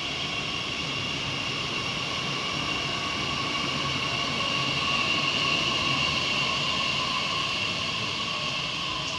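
Electric multiple-unit train pulling away along the platform: a steady whine from its electric traction equipment over the rumble of the wheels on the rails, swelling a little about halfway through.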